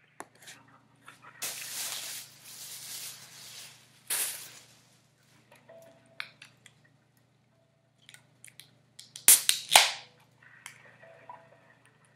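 Handling and rustling noises, then a tall aluminium drink can being cracked open about nine seconds in: a few sharp cracks of the tab and a short hiss. Faint hold music comes through a phone speaker near the end.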